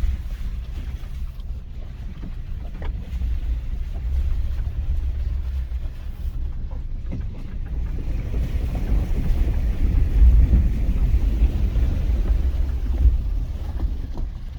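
Mitsubishi Pajero iO on the move: a steady low rumble of engine and road noise that swells louder with a rush of noise a little past halfway.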